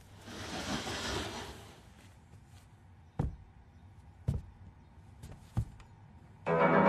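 A soft whooshing swell, then three slow, heavy footsteps about a second apart; a sustained music chord comes in at the very end.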